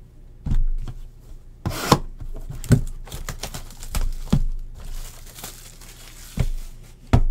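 Plastic shrink-wrap on a sealed trading-card box crinkling and tearing as it is handled and opened, with a sharp rip about two seconds in. Several light knocks of the cardboard box against hands and table.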